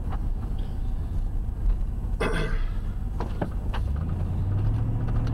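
Car engine and road noise heard from inside the cabin, the engine note rising about four seconds in as the car accelerates out of a turn at an intersection.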